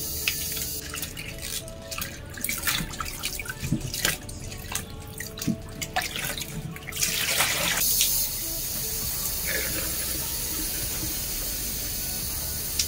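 Kitchen tap running into a plastic basin in a stainless steel sink while hands swish and rinse leafy greens, with many small splashes and knocks. About seven seconds in there is a louder rush of water, after which the tap runs steadily.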